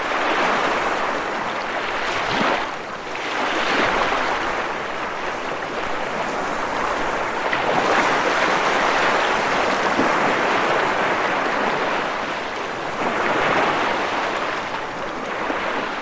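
Waves washing in: a steady rushing noise that swells and ebbs every few seconds.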